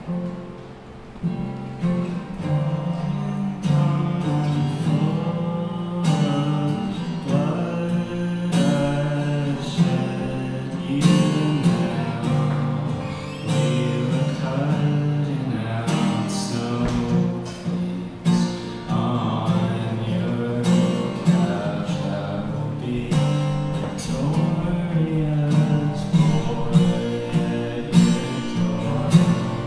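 Solo acoustic guitar strummed steadily in a live song, with a man singing over it.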